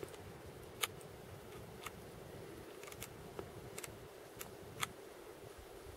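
About six short, sharp clicks at irregular spacing over a faint steady hum and hiss, the loudest a little under a second in and near the end.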